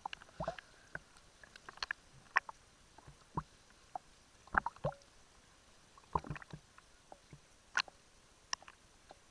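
Irregular knocks and splashes of water slapping against a small sailing dinghy's hull, over a faint steady hiss.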